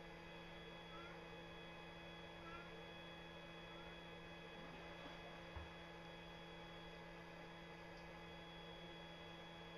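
Near silence with a faint steady electrical hum, a few tiny short chirps in the first few seconds and a soft thump about halfway through.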